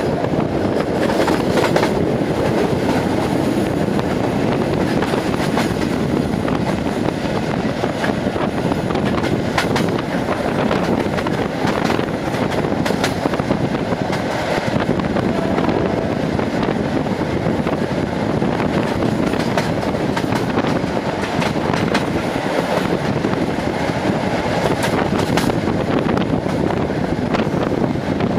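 Passenger train running at speed, heard from a carriage window: a steady rumble of wheels on rail with scattered sharp clicks as the wheels pass over rail joints.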